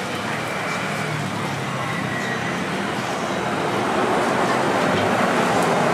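Steady sizzling from egg, cheese and toast frying on a flat-top griddle, growing somewhat louder about four seconds in.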